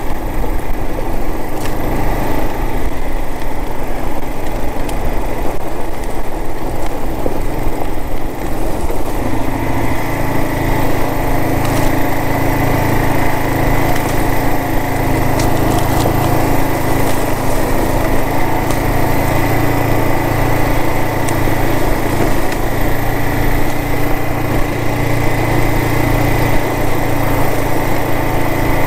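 Kawasaki KLR 650's single-cylinder four-stroke engine running steadily while riding over loose rock. About a third of the way in, the engine note rises and gets louder.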